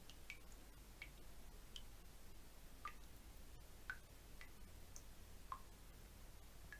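Water drops falling one at a time, each a faint short plink at a different pitch, about ten at irregular intervals.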